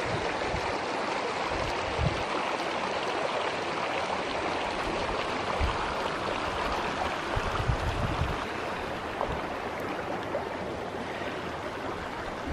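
Shallow mountain creek running over stones, a steady rush of water, with a few brief low bumps about two seconds in and again around eight seconds.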